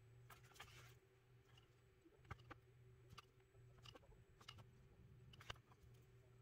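Near silence: a faint steady low hum with a handful of soft, scattered clicks and taps, the handling noise of fingers working a toothpick and clamp close to the microphone.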